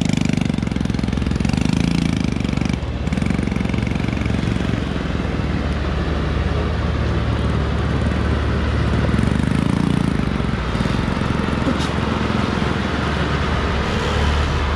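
Diesel engine of a truck loaded high with acacia logs, working hard as it climbs a muddy slope, running steadily with a rough rattle.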